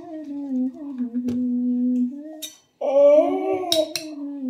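A voice humming a slow tune in long, held notes, growing louder about three seconds in. A spoon clinks lightly against a bowl a few times.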